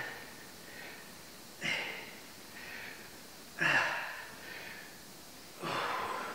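A man breathing hard while doing oblique crunches: a sharp, forceful exhale on each rep, about every two seconds, with quieter inhales in between.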